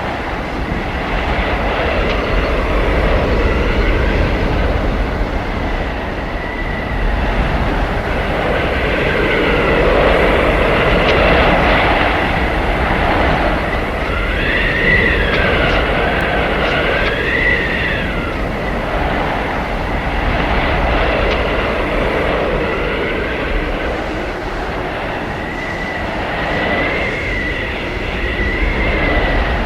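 Howling blizzard wind: a steady rush of gusts that swells and fades every few seconds, with a high whistling howl that bends up and down in pitch, strongest around the middle of the stretch.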